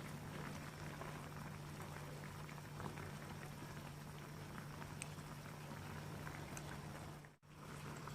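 Pot of tteokbokki and ramyeon bubbling at a boil: a soft, steady bubbling with small scattered pops over a low steady hum. It drops out for a moment near the end.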